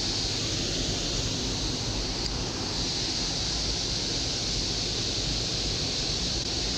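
Steady rushing of water pouring over a small concrete spillway into the pool below.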